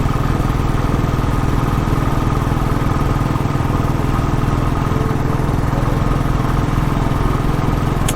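Royal Enfield Classic 350's single-cylinder engine running steadily with an even, low thumping beat and no change in speed.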